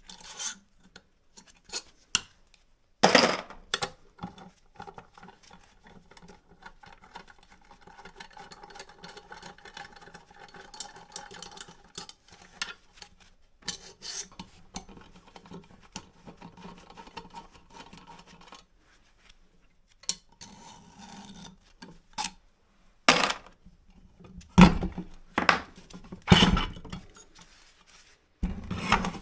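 Long bolts being backed out of a water pump motor's aluminium end cover with a nut driver, a long scraping, rubbing sound of tool and threads turning. A knock comes about three seconds in, and several sharp metal knocks and clinks come near the end as the motor comes apart.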